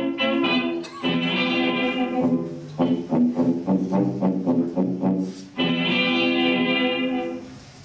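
Instrumental dance music. Held chords give way about three seconds in to a passage of quick plucked notes, then held chords return and fade out near the end.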